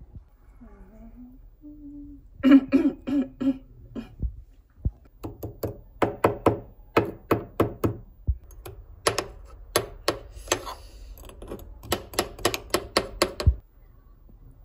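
A person's voice making a long run of short, rhythmic vocal sounds, like humming or mouth beats, several a second, stopping abruptly near the end.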